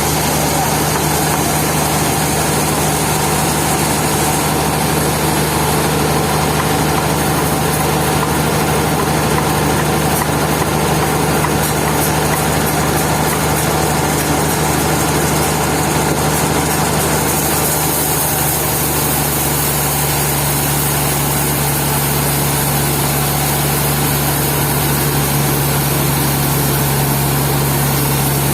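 Sawmill machinery running steadily, with a constant low engine-like hum.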